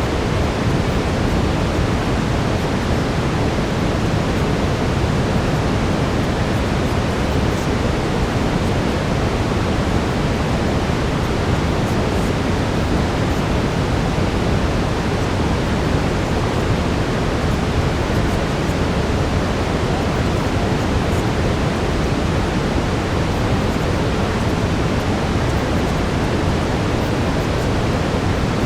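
Steady brown noise: an even, deep rushing hiss, strongest in the low end, with no change or break.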